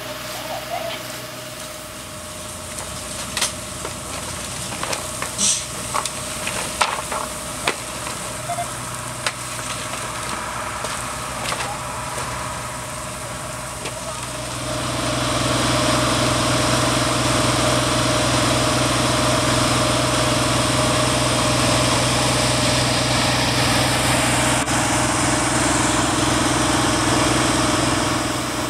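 Fire engine idling, with scattered knocks and clicks. About halfway through, the engine runs harder and a loud, steady rushing hiss joins it.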